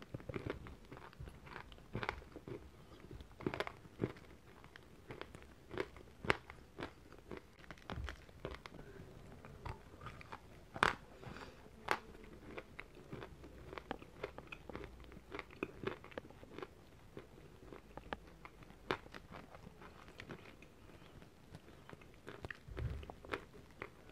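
A person biting and chewing a crumbly white chalk-like chunk, with many short, sharp crunches scattered through the chewing; the loudest crunch comes about eleven seconds in.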